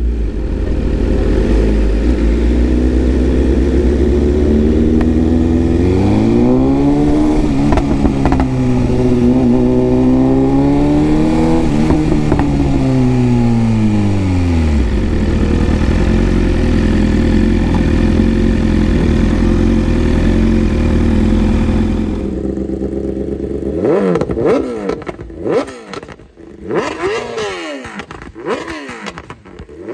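Motorcycle engine running over a steady low rumble, its pitch rising, holding and falling once in the middle. Near the end it changes to a string of short, quick revs.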